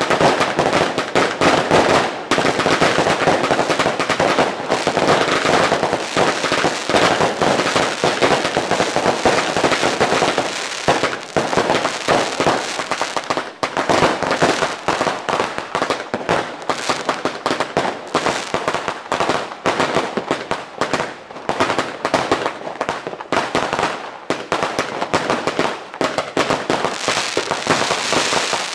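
Fireworks and firecrackers going off continuously: a dense, unbroken crackle of rapid bangs, slightly thinner near the middle and again near the end.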